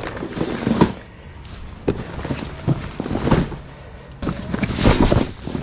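Stiff PVC boat fabric and clear plastic wrap rustling and crinkling as a folded inflatable boat is unrolled by hand, in several irregular bursts.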